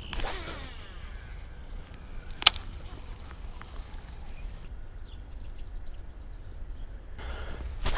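Wind rumbling on the microphone, with one sharp click about two and a half seconds in.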